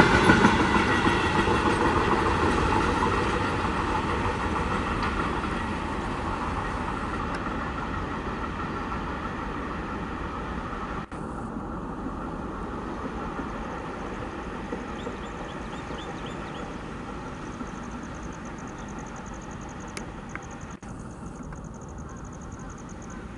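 Freight train of covered wagons rolling along the rails and moving away, its rumble fading steadily.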